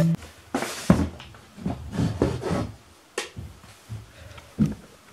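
A handful of scattered light knocks and thuds with some rubbing between them.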